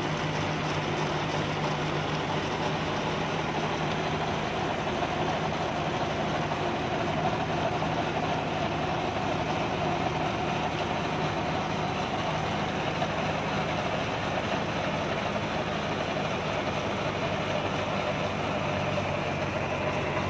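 John Deere 5075E tractor's diesel engine running steadily under load while driving a rear-mounted rotary tiller (rotavator) through the soil.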